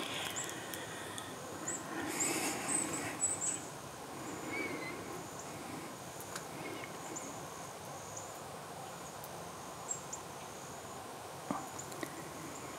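Small birds chirping in the background with short, high notes scattered throughout, over a light rustle in the first few seconds, and a few sharp taps later on.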